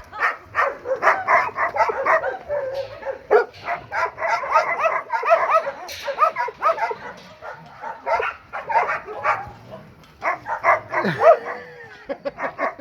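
Several dogs barking and yelping together in a dense, overlapping chorus of short barks. Near the end a whine slides down in pitch.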